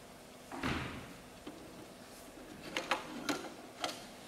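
Magic lantern slide being changed by hand: a sliding thud under a second in, then four sharp clicks and knocks near the end as the next square slide is pushed into the lantern.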